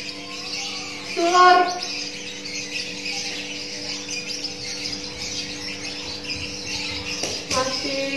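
Birds chirping continuously in the background over a steady low hum, with a short voice-like call about a second in and a weaker one near the end.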